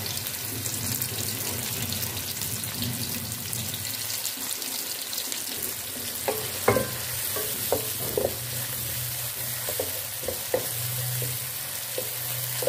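Sliced onions and cumin seeds sizzling steadily in hot oil in a metal pot. From about halfway through, a wooden spoon stirs them, knocking and scraping against the pot several times.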